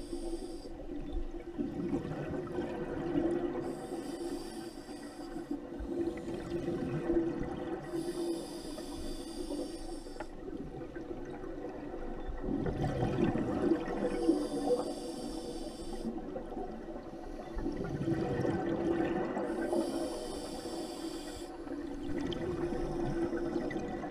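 Scuba diver breathing underwater through a regulator: a hissing inhale through the demand valve alternating with a bubbling, gurgling exhale, about five breaths, one every five to six seconds.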